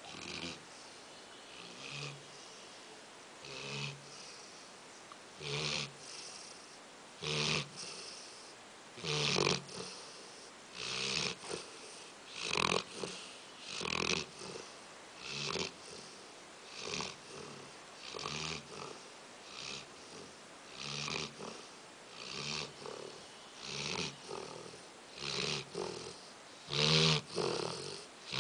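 Snoring in deep sleep: one snore about every one and a half seconds, steady and regular, faint at first and louder after the first few seconds.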